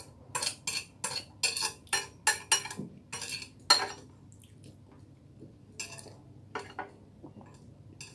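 Cutlery scraping and clinking against a plate as the last of the rice is gathered up: a quick run of short strokes, about two or three a second, for the first four seconds, then a few scattered ones.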